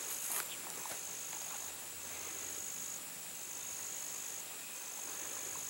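Insects trilling in high-pitched pulses about a second long, each followed by a short break, repeating roughly every second and a half.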